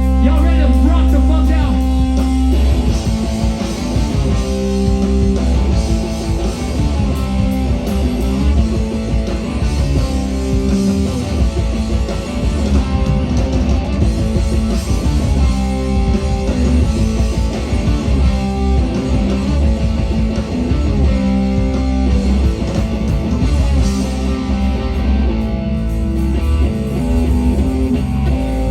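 Live rock band playing, with guitar lines leading over bass guitar and a drum kit.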